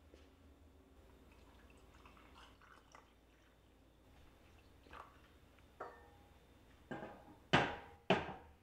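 Hot water poured from an enamel kettle into a ceramic mug, a faint trickle, followed near the end by two loud, sharp knocks.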